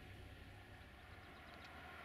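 Near silence: faint steady low rumble under a quiet outdoor background, with a few very faint ticks about one and a half seconds in.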